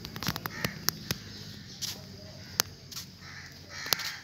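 Outdoor ambience with birds calling faintly and a handful of sharp, irregular clicks and taps.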